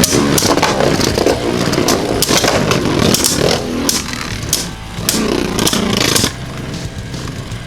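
Two Beyblade Burst spinning tops whirring and scraping against each other in a Beyblade stadium, with repeated sharp clashes as they collide. The whirring drops to a quieter level about six seconds in.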